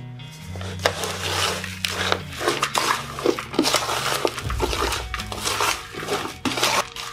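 Hands mixing a potting mix of plant soil, perlite and orchid bark in a plastic basin: a continuous gritty rustle with many small clicks and scrapes of the grit and bark against the plastic.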